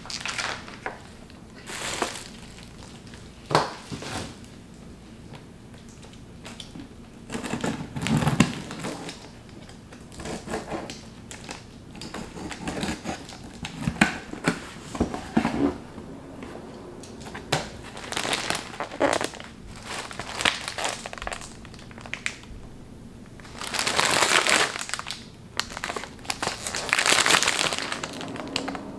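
Crinkly plastic food packaging and a cardboard shipping box being handled, in short rustling bursts; the longest and loudest crinkling comes near the end as snack bags are taken out of the box.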